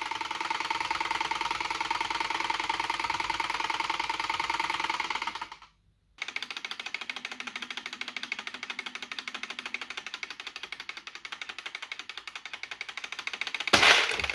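Wind-up countdown toy ticking rapidly and evenly. Near the end its spring mechanism releases with a loud snap that pops the red pins off the box.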